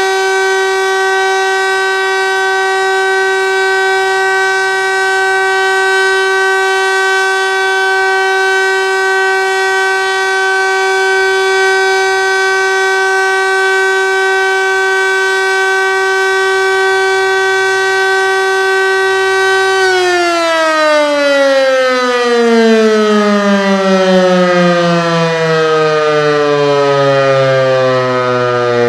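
Landert MSL-3 motor siren sounding a steady tone. About twenty seconds in it is cut off and its pitch falls smoothly as the rotor spins down.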